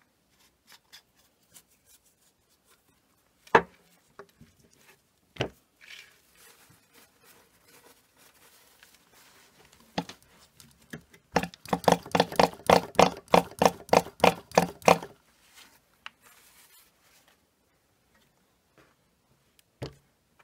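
Nitro RC car engine pull-started over and over under a cloth, a fast even run of rattling clicks lasting about three and a half seconds, turning the engine over to work after-run oil through it. A few single knocks come earlier as the cloth and car are handled.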